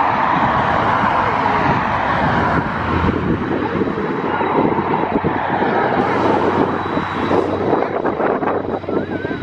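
Saab 340B's twin General Electric CT7 turboprop engines and propellers at takeoff power, a dense steady roar with a faint high whine, slowly fading as the aircraft moves away.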